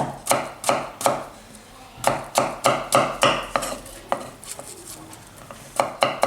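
Kitchen knife chopping an onion, in runs of quick strokes about three or four a second with a lull in the middle.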